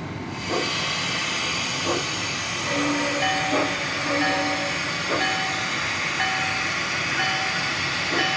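Bachmann Spectrum "Glenbrook" 2-6-0 large-scale model steam locomotive running slowly along its track. A steady hiss comes in about half a second in, with a few clicks and short, repeated tones over it.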